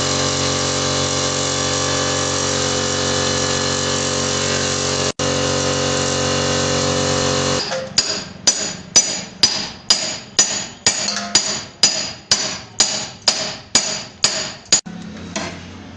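A power tool runs steadily, then stops abruptly about halfway through. A run of about sixteen hammer blows on metal follows, a little over two a second, each ringing briefly, as part of the scooter engine repair.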